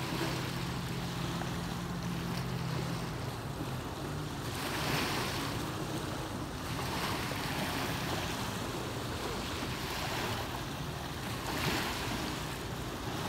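Small waves lapping and washing onto a sandy lake shore, the wash swelling and falling back every few seconds. A distant motorboat engine hums low in the first few seconds and fades out.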